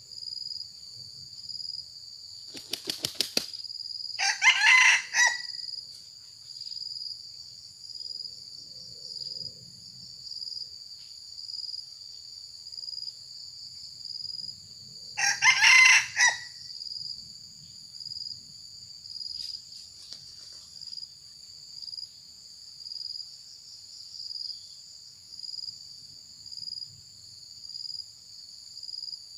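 A young cockerel flaps its wings about three seconds in, then crows twice, each crow about a second long, roughly eleven seconds apart. Crickets chirr steadily throughout.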